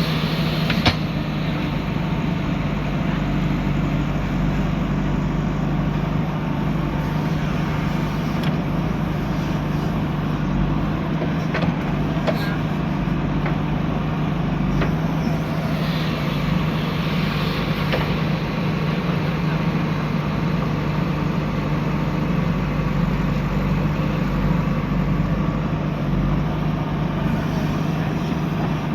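JCB 3DX backhoe loader's diesel engine running steadily under work, with a sharp knock about a second in and a few fainter knocks later.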